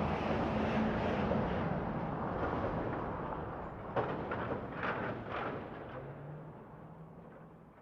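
Big truck's engine rumbling, gradually fading away. Around the middle there is a short run of sharp knocks and rattles, after which a lower steady engine hum dies down.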